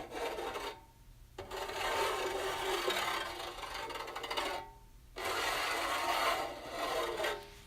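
Fingernails scratching across metal in three strokes: a short one, then two long scrapes of about three seconds and two and a half seconds, with brief pauses between them and a thin squeak as strokes end.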